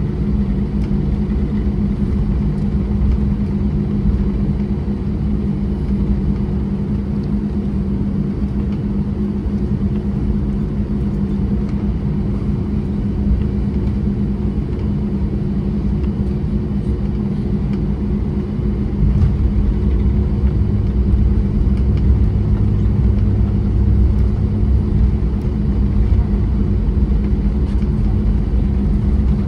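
Airbus A320 cabin noise: a steady low rumble of the jet engines and airflow with a constant hum, growing louder in the low end about two-thirds of the way through.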